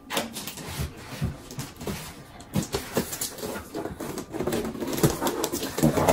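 Knocks, bumps and rustling as a large gift-wrapped box is picked up and lifted.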